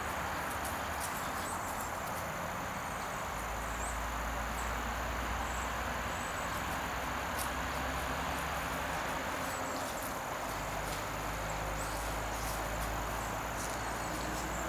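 Outdoor ambience: insects, likely crickets, trilling steadily at a high pitch over an even hiss, with a low rumble that comes and goes.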